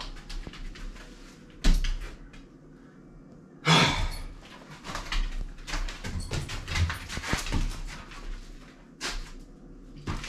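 Sharp knocks, the loudest about four seconds in, then a stretch of uneven clattering and rattling, with one more knock near the end: demolition noise of hard material being struck and shifted.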